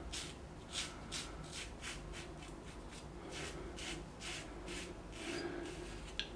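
Blackland Osprey adjustable safety razor with a Gillette Rubie blade scraping through lathered stubble in short, quick strokes, about two or three a second: the faint rasp of the blade cutting whiskers.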